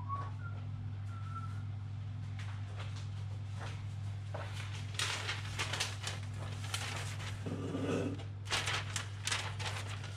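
Newspaper rustling and crinkling in short bursts, about halfway through and again near the end, over a steady low hum.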